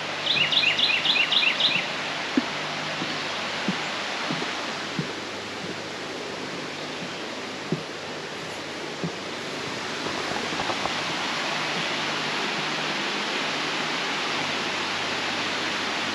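A bird gives a quick run of about eight short chirps in the first two seconds, over a steady rushing outdoor noise that grows a little louder about ten seconds in. A few soft thumps come through during the first half.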